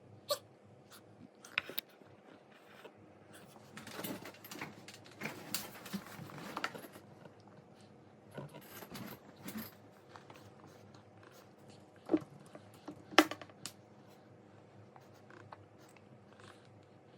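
A toddler eating: soft, irregular chewing and mouth sounds with light rustling and scattered sharp clicks, the two loudest clicks about twelve and thirteen seconds in.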